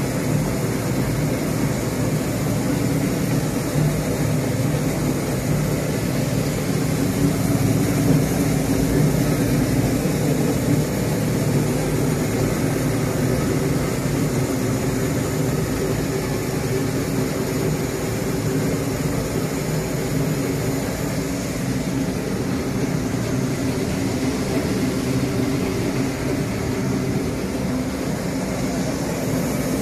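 Brush-screw potato washing and peeling machine running steadily, a continuous motor hum mixed with the hiss of its water spray.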